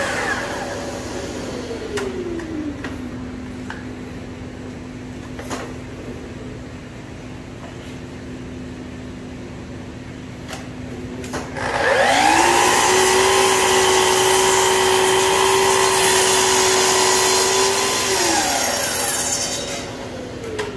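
Festool sliding compound miter saw: its blade spins down with a falling whine at the start, followed by a quieter stretch with a low hum and a few light knocks. About twelve seconds in, the motor starts again with a rising whine, runs steadily for about six seconds while crosscutting a plywood board, then winds down near the end.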